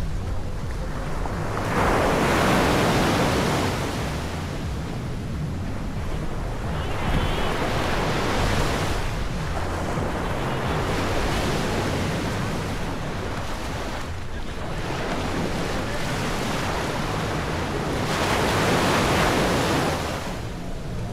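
Sea waves washing onto a beach, the surf swelling and fading every few seconds, with wind rumbling on the microphone.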